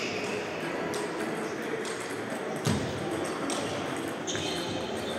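Table tennis rally: the plastic ball clicking off paddles and table about five times, roughly one hit every 0.8 s, the hit near the middle the loudest with a dull thud under it. Faint voices and play from other tables run underneath.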